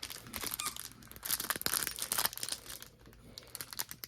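Plastic wrapper of a football trading-card pack crinkling as hands work it open, dense crackling over the first couple of seconds, then quieter.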